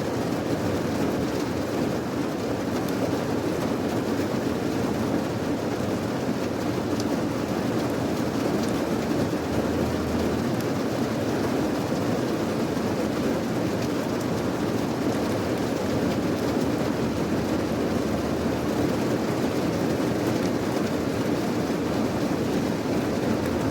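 Steady rain: an even, deep hiss with no let-up or separate drops standing out.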